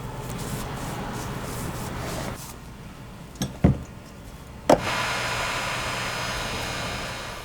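Hand work on a hiking boot in a repair workshop: rough rubbing or sanding for about two seconds, three sharp knocks in the middle, then a steady abrasive grinding over a low machine hum near the end.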